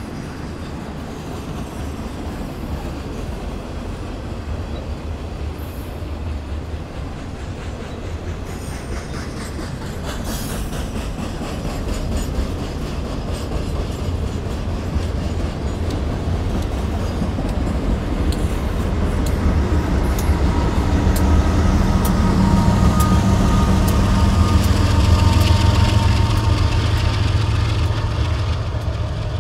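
Double-stack freight cars running over a wooden trestle bridge, steady wheel noise with regular clicks over rail joints. The sound grows louder toward the end as the BNSF diesel locomotives at the rear of the train pass, their engines adding a low steady hum and a higher whine.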